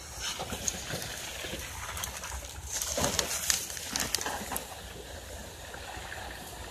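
Irregular crackling and snapping of a burning brush and grass fire, sharp clicks scattered throughout. A louder, busier stretch comes about three seconds in.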